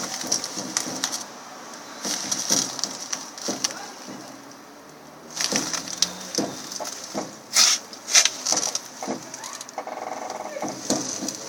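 Irregular knocks and clunks from the suspension strut of a Lada Kalina 2194, the two loudest coming close together about two-thirds of the way through: the sign of a knocking strut.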